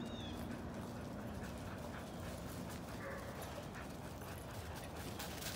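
Dogs moving about on dry leaf litter and wood chips: soft, scattered footfalls and rustling, with faint dog sounds.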